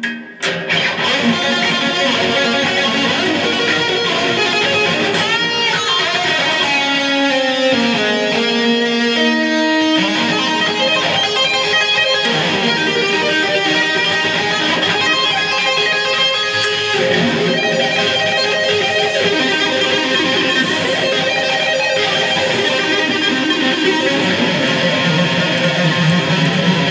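Solo electric guitar playing lead lines, with two-handed tapping on the fretboard. It comes in about half a second in and then plays on without a break.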